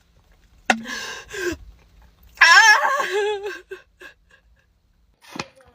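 A person whimpering with a wobbling, shaky pitch for about a second, after a short sharp vocal noise and breathy sounds, while holding in a burp.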